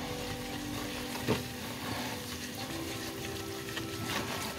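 Butter, onions and flour sizzling gently in a pot as a silicone spatula stirs them, the flour being cooked in to thicken the mixture. A single soft knock about a second in.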